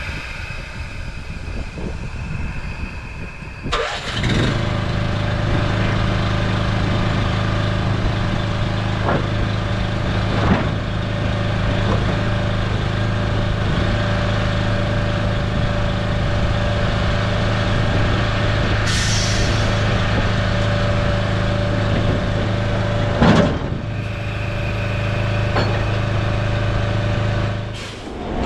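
A diesel engine starts about four seconds in and runs at a steady idle with an even, unchanging pitch. A few sharp knocks and clicks sound over it, and it cuts off shortly before the end.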